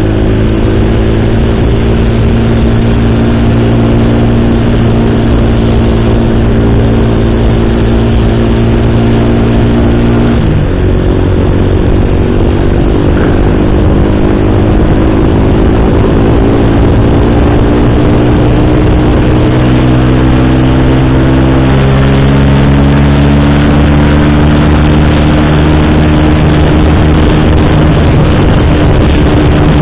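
Motorcycle engine running under way. It is a steady hum that climbs slowly in pitch and drops suddenly about ten seconds in, as on an upshift, and shifts again around twenty seconds.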